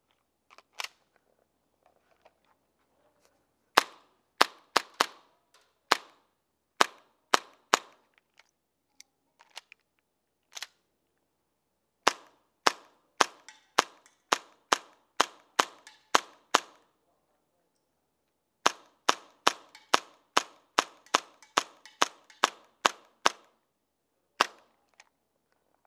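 Gas blowback airsoft pistol firing three strings of single shots, sharp cracks about two to three a second, with short pauses between strings. A click near the start as the pistol is reloaded.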